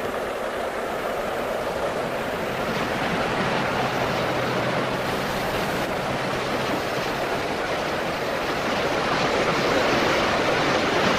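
Steam locomotive hauling passenger coaches past: a steady rushing noise from the engine and its running gear, growing a little louder near the end.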